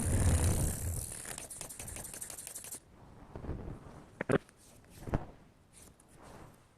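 Steel kitchen-shear blade stroked along a whetstone, a rapid gritty scraping for the first few seconds as the serrated edge is ground away. Then two sharp knocks about a second apart, followed by faint scrapes.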